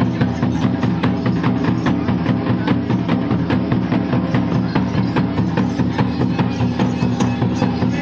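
Music with fast, even drumming over a steady low drone.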